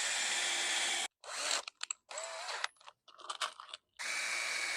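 Power drill working pallet-wood shelf boards: it runs steadily, stops about a second in, gives several short spurts, then runs steadily again near the end.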